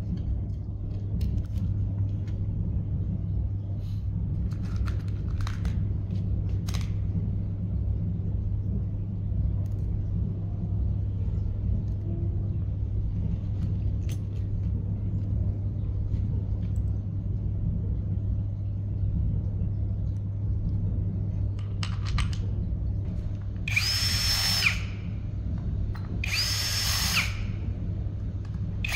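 A steady low hum with a few faint handling clicks, then a cordless drill-driver runs twice near the end, about a second each time, driving screws into the battery cell terminals.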